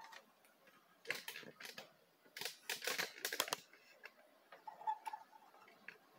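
Clicking and clattering from the works of a Philco PMC16 sewing machine as its needle and rotary hook are cycled, in two bursts of quick clicks about a second in and between two and three and a half seconds in, then a faint click near five seconds. The needle passes the hook without striking it: the needle-to-hook timing is correct.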